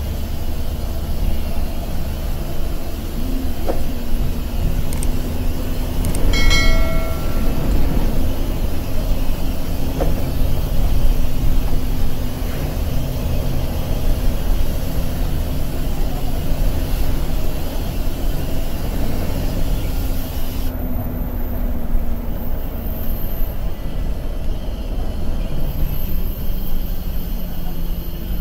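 Steady low rumble of a moving intercity bus, engine and road noise heard from inside the cabin, with a short horn blast about six seconds in.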